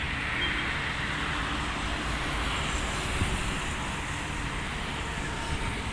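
Road traffic: vehicles passing on a road, a steady rush of engine and tyre noise.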